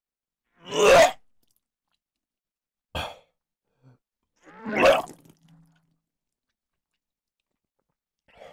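A man gagging and retching in three loud, short bursts about two seconds apart, with a faint fourth near the end, as he tries to get down a tough fish and pork ball.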